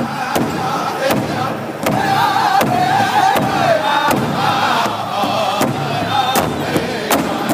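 Powwow drum group singing together over the steady unison beat of a large hide drum struck by several drumsticks. The singing swells louder about two seconds in.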